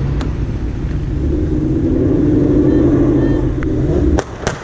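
Car engine drone heard inside the cabin as the car pulls away, building through the middle. About four seconds in the drone drops away and two sharp, gunshot-like cracks follow: exhaust pops or backfires from a car.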